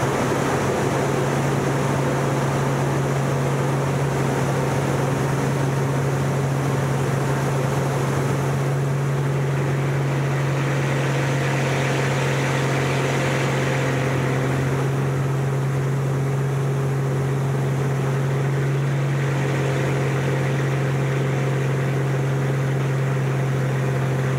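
Aerobatic plane's piston engine and propeller heard from inside the cockpit in flight, a loud steady drone that holds one pitch throughout, with air noise over it.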